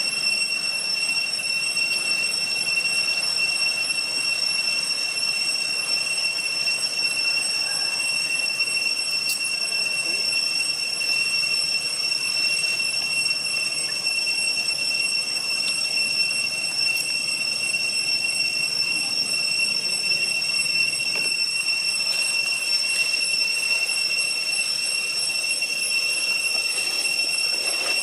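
Cicadas droning in a steady, unbroken high-pitched whine.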